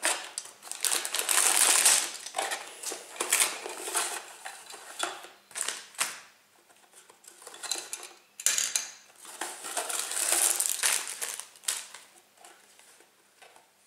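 Cardboard Lego box being opened and its sealed plastic bags of bricks crinkling and rattling as they are pulled out and handled, in irregular bursts that thin out near the end.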